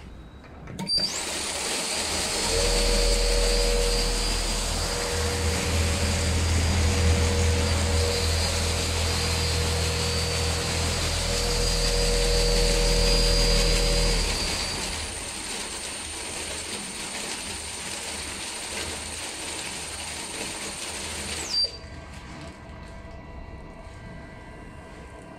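Screw auger feeder and its drive motor running, dispensing a weighed batch of about 30 kg. It starts about a second in as a steady high whine over a rumble, runs quieter from a little past halfway, and cuts off with a thump near the end as the batch target is reached.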